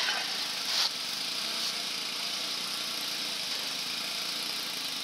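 Steady mechanical running noise, like an engine or machine idling, with one brief sharp noise about a second in.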